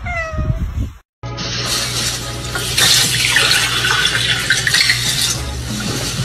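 A cat meows once at the start, the call falling in pitch. After a brief gap, water runs steadily from a kitchen tap into a glass holding ice.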